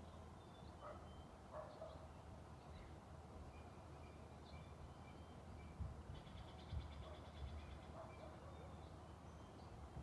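Faint forest ambience: scattered small bird chirps and calls, with a short rapid trill about six to seven seconds in, over a steady low rumble.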